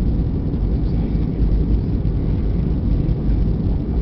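Jet airliner cabin noise on final approach to landing: a steady low rumble of engines and rushing air, heard from a window seat.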